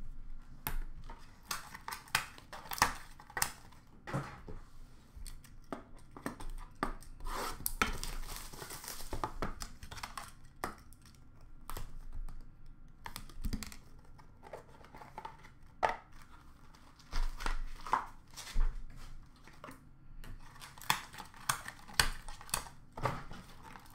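Trading-card packaging being opened and handled: wrapper and cardboard tearing and crinkling, densest about a third of the way in, among scattered sharp clicks and taps of hard plastic card cases being picked up and set down.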